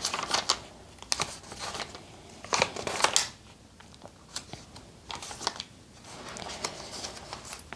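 Paper rustling as a notebook's pages are turned and handled: several separate short, papery flips and brushes.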